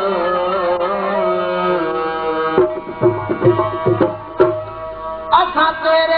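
Instrumental break in a Sufi song. A held, wavering melody thins out about two and a half seconds in, leaving tabla strokes whose deep bass notes bend in pitch. The full melody comes back over the tabla about five seconds in.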